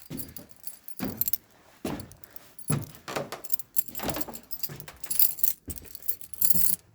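Footsteps, roughly one a second, each with a bright high-pitched rattle.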